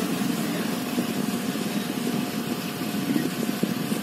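A small motor running steadily: an even, low hum with a faint steady whine above it.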